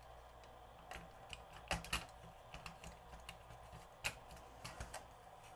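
Faint, irregular small clicks and taps as a cassette-deck tape mechanism is handled and taken apart by hand: plastic and metal parts knocking lightly together.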